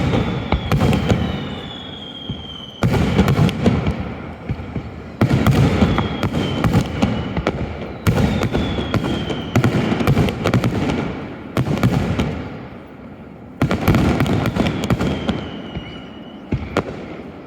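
Aerial fireworks shells bursting: five loud bangs a few seconds apart, each trailing off in crackle over a couple of seconds, with a faint high falling whistle after several of them.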